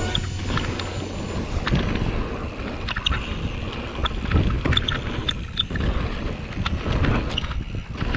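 Mountain bike rolling fast down a gravel trail: wind buffeting the microphone and tyres running over loose dirt and stones, with scattered sharp clicks and rattles from the bike.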